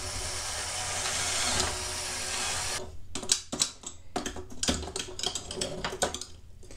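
Cordless drill with a 4 mm bit running steadily as it bores through a plastic model frame, stopping about three seconds in. Then a string of small clicks and knocks as the plastic parts are handled and worked with a hand tool.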